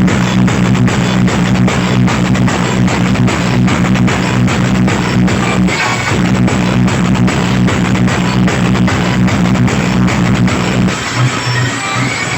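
Loud music with heavy bass and a dense drumbeat played through a large sound system during a sound check. The deep bass drops out near the end.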